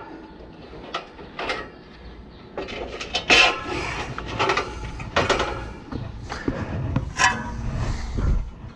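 Metal clinks, knocks and scrapes as a condenser fan blade is handled and fitted onto the hub and shaft of a new fan motor.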